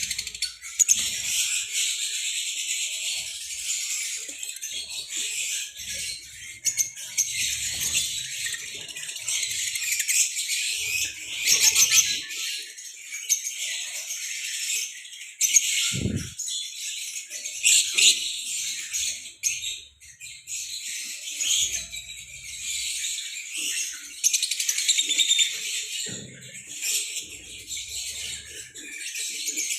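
A flock of lovebirds chattering: many shrill, high chirps overlapping without a break, swelling and easing in loudness.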